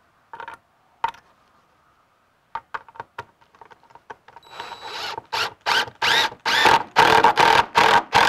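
Cordless drill run in short trigger bursts, about three a second, against a red cedar railing top, the motor speeding up and slowing in each burst; a few light clicks come before the bursts start about four and a half seconds in.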